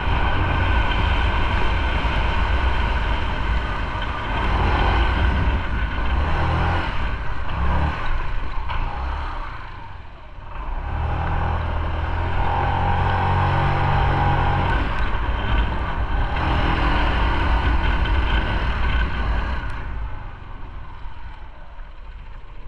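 Motorcycle engine running under way, its level rising and falling with the throttle. It eases off briefly about ten seconds in, pulls again, then settles lower and quieter near the end.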